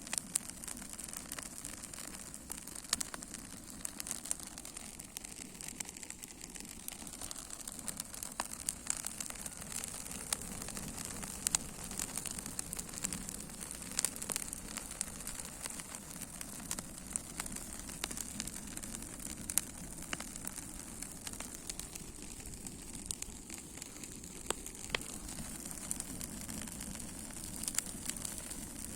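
Wood fire burning and crackling: a steady hiss with sharp pops scattered irregularly throughout.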